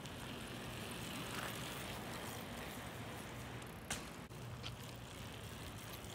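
Faint steady outdoor background noise with a low hum, broken by a sharp click about four seconds in and a lighter one soon after.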